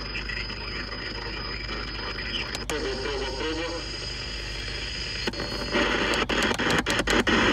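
CB radio receiver hissing and crackling with static while scanning channels, a faint voice from a distant station breaking through about three seconds in. The static gets louder just before six seconds in.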